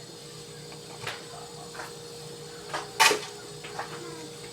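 A few light knocks and clinks of kitchen things being handled and set down on the worktop, the loudest about three seconds in, over a steady faint hum.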